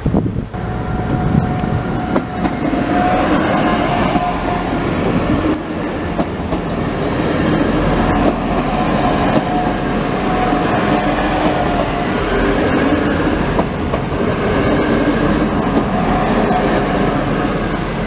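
Two coupled Trenitalia ATR 220 diesel multiple units passing over a level crossing at close range. The diesel engines run and the wheels clack over the rail joints and crossing, with a whine that comes and goes.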